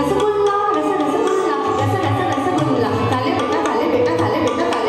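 Live Hindustani classical music for kathak: a woman singing into a microphone, with tabla and a sarangi accompanying her.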